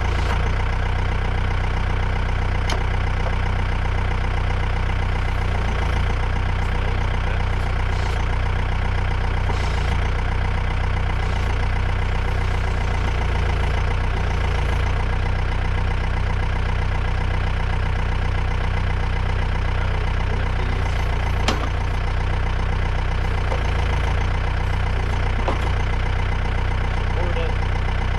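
John Deere tractor's diesel engine running steadily, with one sharp click a little over 21 seconds in.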